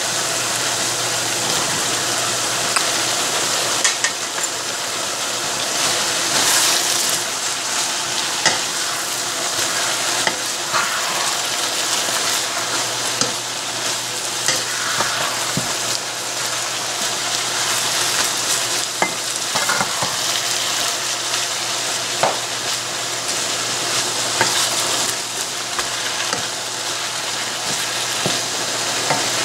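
Ground chicken, cabbage and mixed vegetables sizzling as they stir-fry in a nonstick wok, turned over and over with a wooden spatula. Frequent sharp knocks of the spatula against the pan sound over the steady sizzle.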